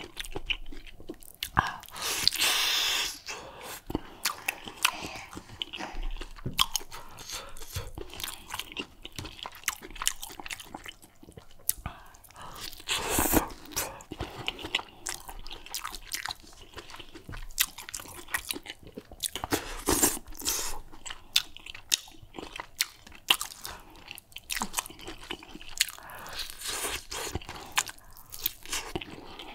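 Close-miked eating with the hands: wet chewing, lip smacks and bites into a soup-covered piece of meat, making many short sharp clicks throughout. Louder bursts of chewing come about 2, 13 and 20 seconds in.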